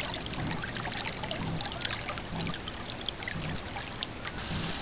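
Water gurgling and trickling along the hull of an FJ 13 sailing dinghy under way, with many small splashes.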